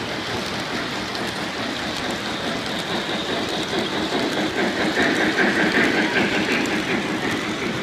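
Model trains rolling past on three-rail layout track, their wheels clattering over the rails. The sound grows louder about five seconds in and then eases off.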